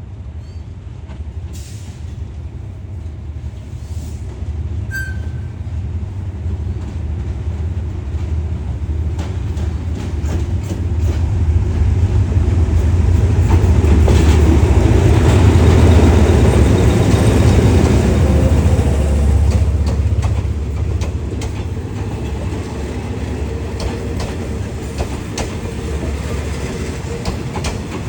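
Thai State Railway diesel-hauled passenger train moving through the station: a low engine rumble with wheels clicking over rail joints, building to its loudest about halfway through and then easing off a little.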